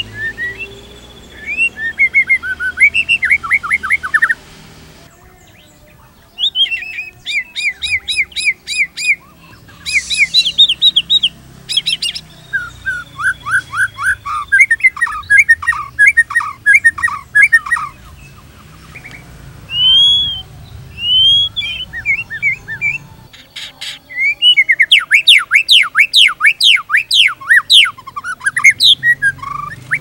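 White-rumped shama (murai batu) singing: long, fast runs of short down-slurred notes repeated several times a second, with a few loud, clear arched whistles about two-thirds through.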